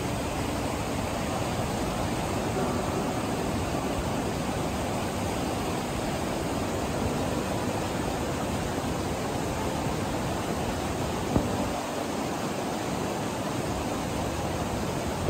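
Fast mountain stream in spate rushing over boulders: a loud, steady rush of white water, with one brief knock about three-quarters of the way through.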